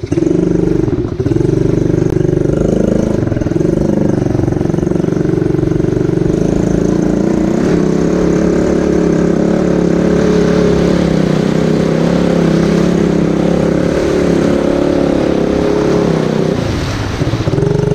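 ATV engine running steadily under throttle while the quad rides along a muddy trail. It eases off briefly near the end as the quad splashes through a puddle, then picks up again.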